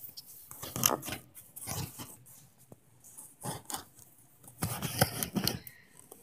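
Handling noise: a handheld camera rubbing and bumping against cardboard boxes in a shopping cart, a few short scrapes and knocks with a denser cluster about five seconds in.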